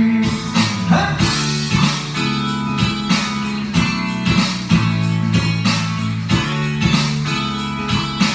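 Karaoke backing track in an instrumental break: guitar-led band music over a steady beat, with no singing.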